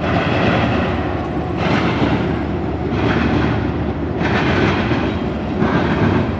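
CSX diesel locomotives hauling an intermodal freight train past: a loud, steady rumble of engines and wheels on the rails. A hiss above the rumble swells and eases about every second and a half.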